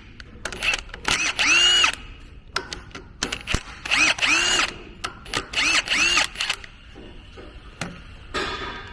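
Cordless drill with a socket spinning out the differential's bearing cap bolts: several short runs of the motor, each climbing quickly in pitch and holding for under a second before stopping.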